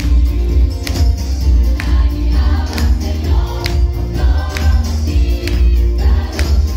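Mixed choir of men and women singing an upbeat song into stage microphones over a heavy bass and a steady beat.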